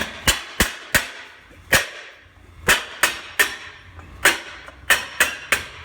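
A run of about a dozen sharp, loud cracks at an irregular pace, some coming in quick groups of two or three: a loud noise made on purpose to test how the dogs react.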